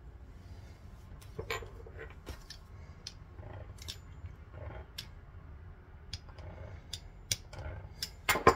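Hands twisting and folding strips of chebakia dough on a work surface: scattered light taps, clicks and rustles, with a louder couple of knocks near the end.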